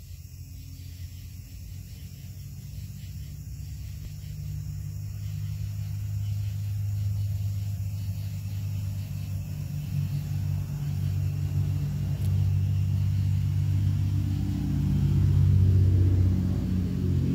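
Low, steady motor rumble that grows gradually louder, loudest near the end.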